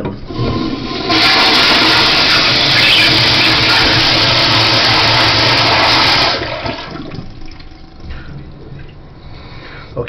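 Tankless high-pressure flushometer toilet flushing. A loud rush of water through the rim jets starts about a second in and runs for about five seconds, then dies away to a quieter flow of water swirling down the drain.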